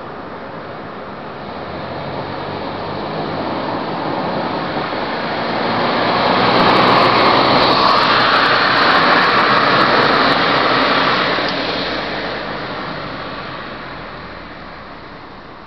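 A car passing by on the street: tyre and engine noise grows over several seconds, stays loudest for about five seconds, then fades away.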